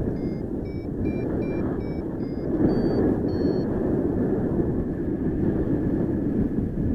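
Airflow buffeting the microphone during a paraglider flight, a steady rushing rumble. Over the first few seconds it carries a run of about eight short electronic beeps, the last two higher-pitched: a flight variometer signalling climbing air.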